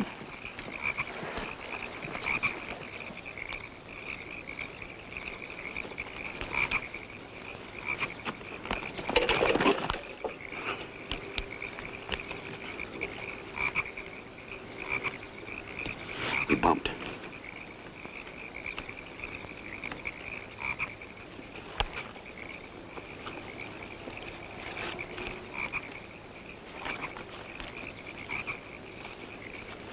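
A steady night chorus of frogs croaking in a swamp, pulsing without a break. Twice, about 9 and 16 seconds in, a short louder noise rises above it.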